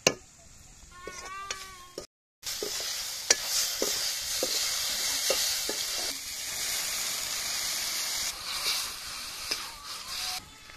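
Onions and vegetables sizzling in hot oil in an aluminium kadai, with a steel ladle knocking and scraping against the pan several times. Water poured in keeps the pan hissing. There is a brief dropout about two seconds in, after which the sizzle is loud.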